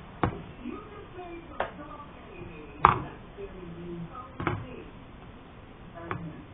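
Plastic Play-Doh tubs knocking as they are handled and set down: five sharp knocks roughly a second and a half apart, the loudest about three seconds in.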